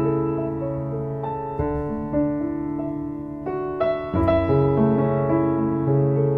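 Background piano music: slow, gentle chords struck and left to ring, a new chord every second or so.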